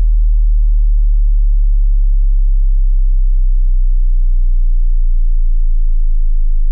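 Deep bass sine test tones for checking a subwoofer, stepping down in pitch every couple of seconds: 39 Hz, then 31 Hz, then 27 Hz. Each is a single pure, steady, loud tone.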